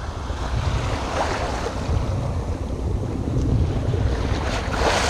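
Wind buffeting the microphone over choppy sea, with waves splashing; two louder washes of water come about a second in and near the end.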